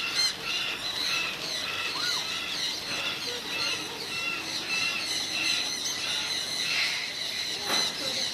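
A flock of small birds chattering, with many short high chirps and squawks repeating over and over.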